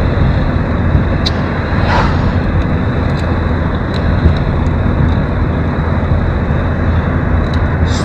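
Interior noise of an Opel car driving along: a steady low rumble of engine and tyres on the road.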